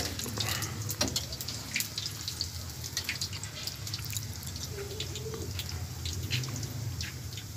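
Pakoras deep-frying in hot oil in a small karahi, with irregular crackling and popping over a low steady hum.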